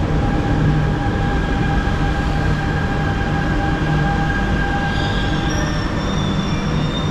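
Buenos Aires Subte metro train pulling into an underground station: a steady rumble with a whining tone that dies away about five seconds in, as high squealing tones start and it slows for the stop.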